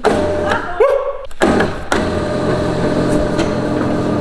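Seat Mii's three-cylinder petrol engine starting: a short loud burst as it catches about a second and a half in, then a steady idle. The car is in for a rattle from the engine bay that has outlasted a timing-belt change; a water pump or bearing is suspected.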